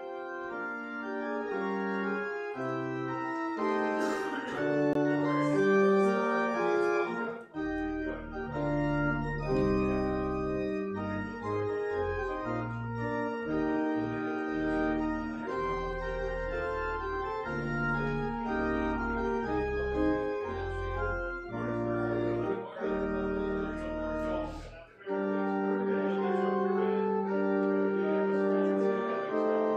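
Organ music: slow, held chords over a low pedal bass. The bass drops out about 25 seconds in, leaving the upper chords.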